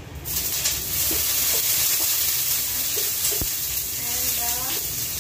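Garlic hitting hot cooking oil in a frying pan, the oil starting to sizzle suddenly just after the start and then sizzling steadily as it is stirred with a wooden spatula.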